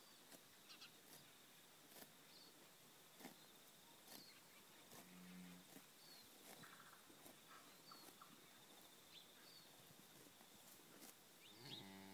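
Cattle mooing faintly: one short low moo about five seconds in and another starting near the end.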